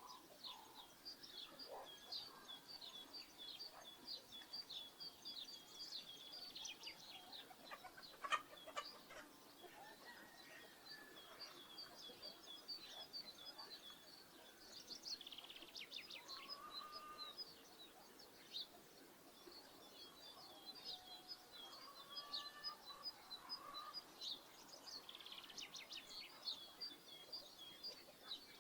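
Faint rural bird ambience: small birds chirping in quick, continuous high notes, with a few lower calls from farmyard fowl now and then. A single sharp knock about eight seconds in.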